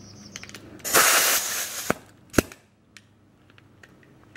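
A burst of air, about a second long, blowing dust out of a computer case, followed by a single sharp click.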